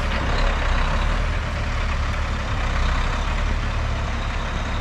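Concrete pump truck's diesel engine running steadily, a low, even rumble.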